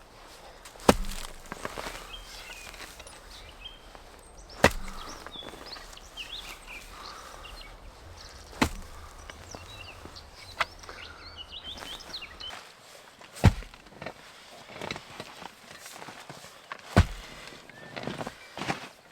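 Garden hand tool striking, a sharp knock about once every four seconds with fainter knocks in between. Small birds chirp in the background.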